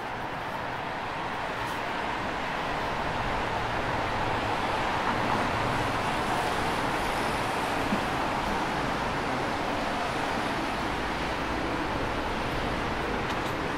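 Road traffic noise of a busy city street, a steady wash of tyre and engine sound that grows louder over the first few seconds and then holds steady.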